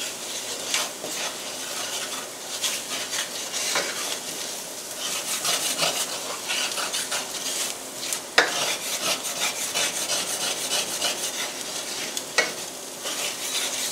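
Wooden spatula stirring and scraping in a stainless steel skillet over a steady frying sizzle, as flour is worked into the sautéed mushrooms, garlic and shallots to cook it in the fat. The spatula knocks sharply twice, about eight seconds in and again near the end.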